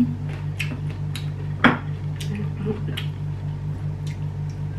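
Close-up eating sounds: wet chewing and mouth smacks, with fingers working rice on a plate, making a run of short sharp clicks, the loudest about 1.7 s in. A steady low hum runs underneath.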